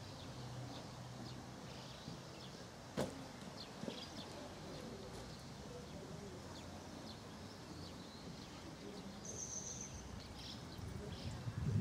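Quiet outdoor ambience with birds chirping, broken by a sharp knock about three seconds in and a lighter one a second later. A brief high whistle comes about nine seconds in, and a few soft scuffs near the end.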